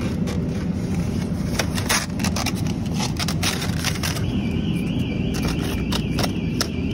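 Supermarket ambience with a steady low rumble, and crackles and clicks of packaged groceries being picked up and dropped into a plastic shopping basket. A steady high tone joins about four seconds in.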